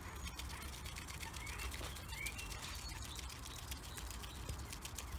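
Canada goose nibbling seeds from a person's hand, its bill making rapid little clicks and taps. A small bird chirps a few times in the background about two seconds in.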